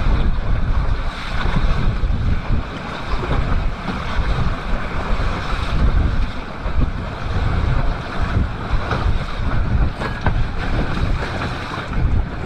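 Wind buffeting the microphone in a gusty low rumble over the steady rush of water along the hull of a sailboat under way.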